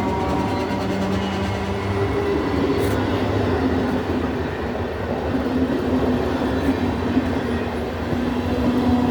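Train passing: a steady rumble of wheels running on the rails, with a faint steady hum over it.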